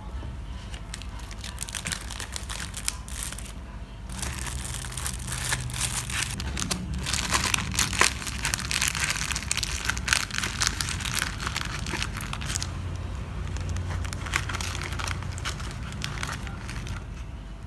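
Packaging handled by hand: irregular, dense crinkling and crumpling, busiest in the middle stretch, over a low steady hum.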